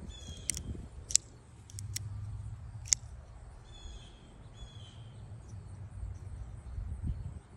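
Sharp metallic clicks from a Benchmade Mini Bugout folding knife being worked in the hand, several in the first three seconds, the loudest about a second and three seconds in. Birds chirp briefly about half a second and four seconds in.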